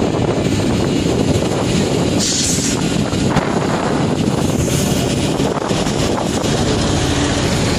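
Caterpillar 329D L excavator's diesel engine and hydraulics running loud and steady as the boom lifts and the MTCR 20 crusher attachment is rotated and its jaws opened, with a brief hiss a little over two seconds in.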